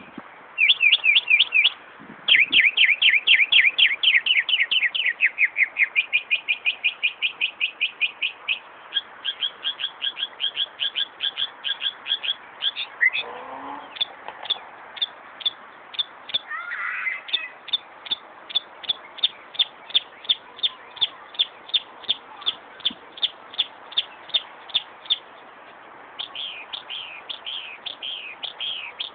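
Northern mockingbird singing a car-alarm imitation. Quick runs of repeated high notes change pattern every few seconds, then give way to a long string of single chirps about three a second, with down-slurred notes near the end.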